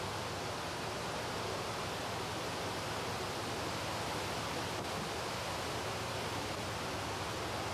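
Steady rushing of river water spilling over the sluice gates of an irrigation-canal intake weir, with the river flowing below.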